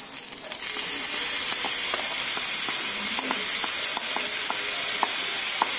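Curd sizzling as it hits hot tempered rice in a steel kadai, a steady hiss that sets in about half a second in, with a wooden spatula stirring and clicking lightly against the pan.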